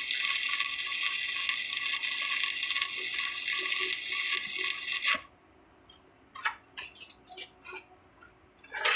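Electric welding arc crackling steadily as a weld bead is laid, cutting off abruptly about five seconds in. A few sharp short clicks and taps follow in the quiet.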